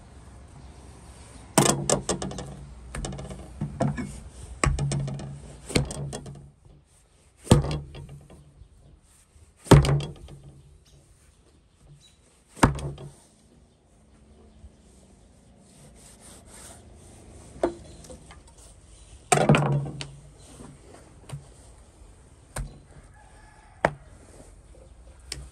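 Heavy knife chopping through beef ribs onto a thick wooden cutting board: a series of sharp thuds at uneven intervals, with quieter cutting and handling of raw meat between.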